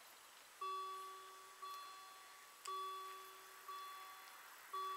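Railway level-crossing warning bells starting to ring just after the crossing activates. A single bell-like ding about once a second, each one ringing out and fading before the next.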